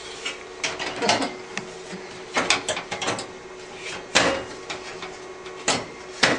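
Side cover of a desktop computer case being handled and fitted back on: a string of irregular knocks and clicks about a second apart, some sharper than others.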